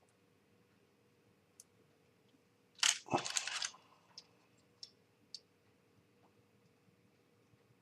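Small model-kit parts being handled: a short crackling, rattling burst lasting under a second about three seconds in, then a few light clicks.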